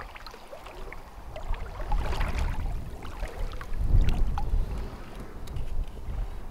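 Shallow seawater sloshing and swishing around wading legs and a dip net being eased through it, with wind rumbling on the microphone.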